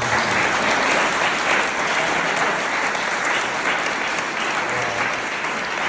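Audience applauding steadily in a hall, easing a little near the end.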